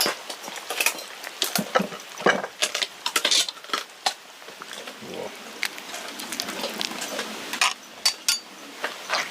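Utensils clinking and scraping against cookware, in many quick, irregular clinks.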